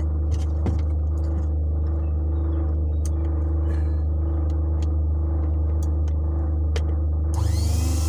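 Steady low hum with a few light clicks. Near the end the repaired Sencor SCG 1050BK coffee grinder's motor switches on through a series test bulb and spins up with a rising whine into a loud whirr, running freely now that its jam is cleared.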